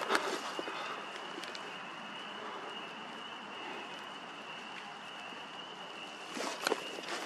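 Dry leaves rustling and crackling under someone moving close to the ground, in a short burst at the start and again near the end, over a steady outdoor hiss with a faint, steady high-pitched tone.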